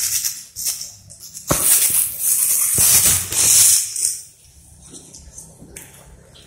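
Thin plastic fruit bag crinkling and crackling as hands pull it open around the fruit on a jujube branch, in loud bursts that die down after about four seconds.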